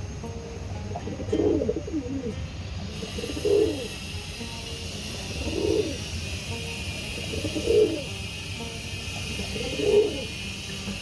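A dove cooing: five low, short coos, about one every two seconds. A steady high hiss joins in the background about three seconds in.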